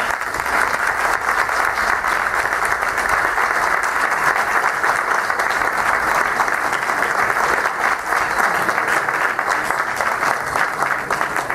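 An audience applauding: a steady round of clapping that starts abruptly.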